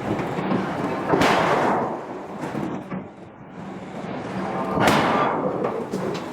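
Hydraulic forging hammer striking a steel billet: two heavy blows about three and a half seconds apart, each ringing on briefly, with lighter knocks between and a steady machine hum underneath.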